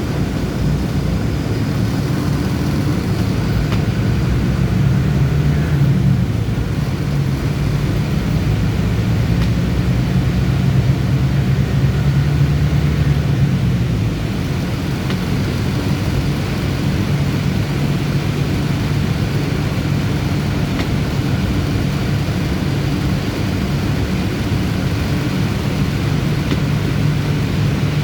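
Bus engine running with road noise from inside a moving bus. The engine hum is stronger from about four seconds to fourteen seconds in, then eases off to a steadier, slightly quieter run.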